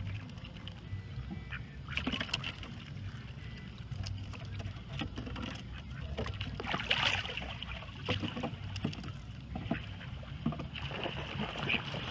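Lake water lapping and sloshing against a boat's swim platform. Short splashes and light taps come at irregular intervals as mallard ducks paddle close and one climbs onto the platform.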